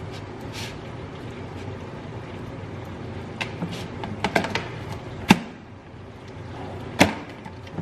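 Kitchen items being handled while food is seasoned: a few scattered clicks and knocks, the sharpest about five seconds in, over a steady low hum.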